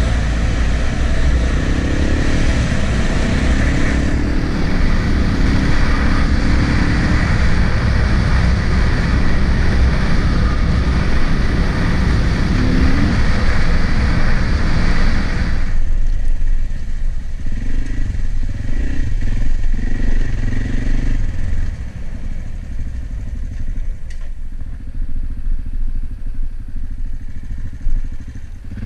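AJP PR7 single-cylinder motorcycle engine running as the bike rides along, with a steady rushing noise over it. About halfway through the rushing noise drops away and the engine runs quieter as the bike slows.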